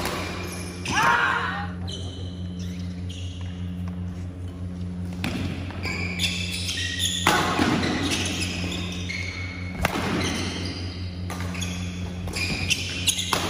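Badminton rally: sharp racket hits on the shuttlecock and short high squeaks of shoes on the wooden court floor, over a steady low hum, echoing in a large hall. A brief shout about a second in.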